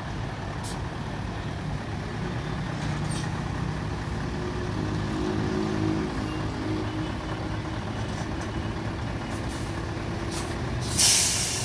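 Mercedes-Benz tractor unit's diesel engine running as the truck reverses under a trailer for fifth-wheel coupling, with a few faint short hisses of air. About eleven seconds in comes a loud burst of compressed-air hiss, typical of the air brakes being set as the truck stops.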